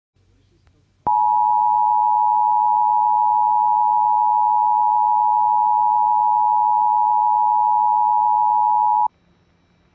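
Emergency Alert System attention signal from a NOAA Weather Radio broadcast: two steady tones near 850 and 960 Hz sounding together for about eight seconds, then cutting off sharply, over faint radio hiss. It announces the start of an alert, here a tornado warning.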